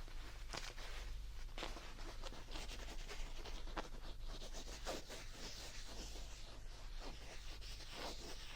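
Close-miked rubbing and scratching on a plush teddy bear: a dense, uneven run of short scratchy strokes over a faint steady low hum.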